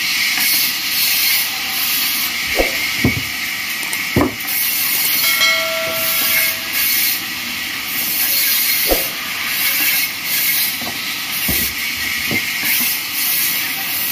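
Vertical bandsaw cutting timber slabs: a steady high hiss from the blade in the wood that swells and eases as each slab is pushed through. Several sharp knocks come from slabs being handled on the table, and a short held tone sounds about halfway through.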